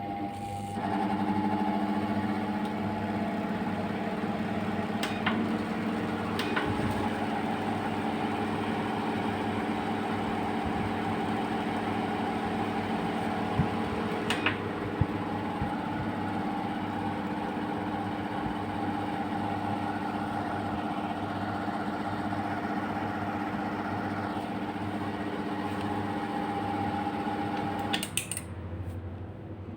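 Ceiling fan motor humming steadily while running on a UPS/inverter's output, the electrical hum that inverter power draws from a fan. The hum starts about a second in and stops shortly before the end, with a few brief clicks along the way.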